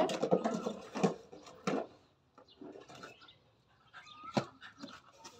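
Beagle puppy vocalising in play in about the first second, then three sharp clacks as it knocks a plastic cup about on a concrete floor.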